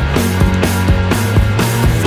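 Background music with a steady, fast drum beat of about four strikes a second over a sustained bass line.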